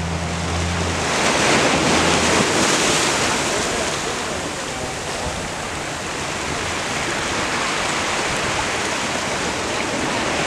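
Small waves washing over a rocky shoreline; the surf swells about a second in and then settles into a steady wash. A low hum fades out about two seconds in.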